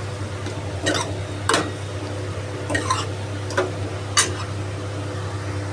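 Metal spoon stirring chicken pieces through thick masala in a metal kadai, scraping and clinking against the pan about five times, over a steady low hum.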